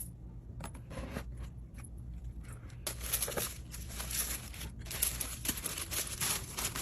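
Packaging being handled: irregular rustling and crinkling, getting busier about halfway through.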